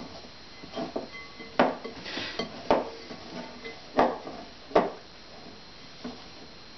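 A spoon knocking and scraping against a mixing bowl as a soft food mix is stirred: irregular clinks, with several louder knocks in the middle, thinning out after about five seconds.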